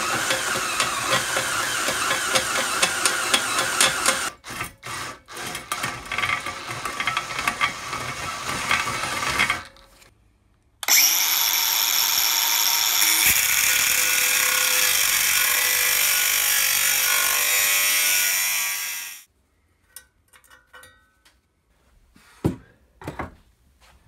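Cordless drill boring through steel flat bar held in a vise: it runs steadily at first, then in short bursts. About eleven seconds in, a cordless angle grinder with a cutting disc cuts through steel angle for about eight seconds and then stops. A couple of knocks follow near the end.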